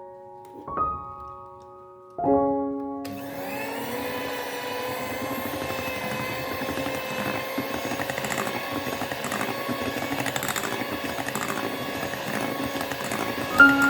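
Background piano music, then about three seconds in an electric mixer starts up, its motor tone rising briefly and then running steadily under the music until near the end.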